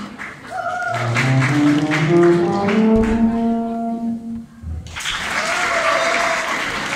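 A brass instrument plays a short rising run of notes and holds the last one. Applause follows about five seconds in.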